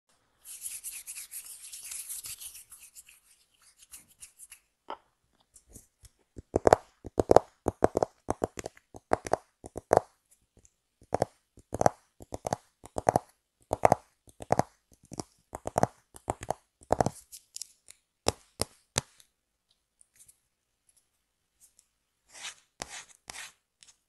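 Close-miked handling of a stiff paper card: a short rustle at the start, then a long run of sharp taps and clicks, roughly two a second, with a pause of a few seconds before a last few near the end.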